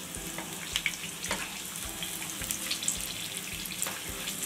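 Batter-coated green chillies deep-frying in hot oil: a steady sizzle with scattered sharp pops.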